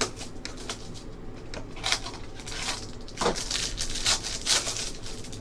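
Hands handling a cardboard trading card box and crinkling and tearing a card pack's wrapper, with louder crinkles about two seconds in and again near four seconds.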